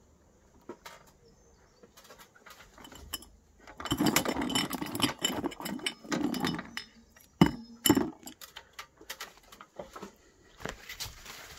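Hedge leaves rustling and crackling close to the microphone for about three seconds, followed by two sharp knocks about half a second apart and then scattered light clicks.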